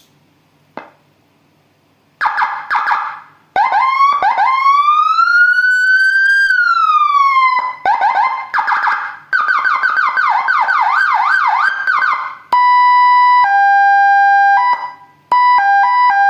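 Landun 60-watt electronic siren module sounding through a 25-watt horn loudspeaker, switching between its tones as it is tested. It starts about two seconds in with a fast warble, then a slow wail that rises and falls, a rapid yelp, and near the end a steady two-tone high-low pattern.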